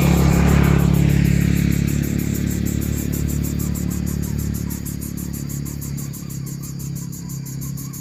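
A motor vehicle's engine running, loudest about half a second in and then slowly fading. A fast, even high-pitched pulsing goes on throughout.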